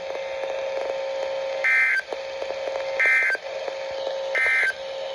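Three short bursts of EAS/SAME digital data tones from a NOAA Weather Radio broadcast, the end-of-message code that closes the severe thunderstorm warning, about a second and a half apart, over a steady hum on the radio signal.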